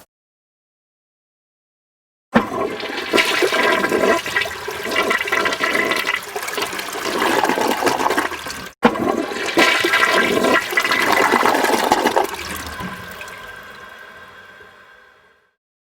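Toilet flushing: a loud rush of water starts suddenly about two seconds in and breaks off for an instant near the middle. It then carries on and fades away as the bowl drains and refills.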